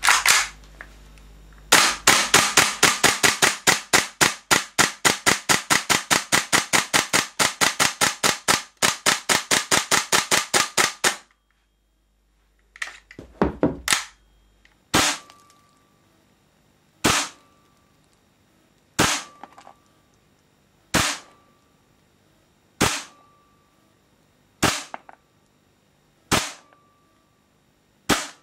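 WE SMG-8 gas blowback airsoft submachine gun firing: a long string of sharp shots, about five a second for about nine seconds. After a pause with some handling clatter, it fires single shots about every two seconds.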